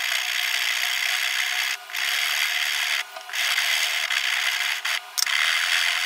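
Hand file rasping along an aluminium bar held in a vise, in long steady strokes broken by three brief pauses.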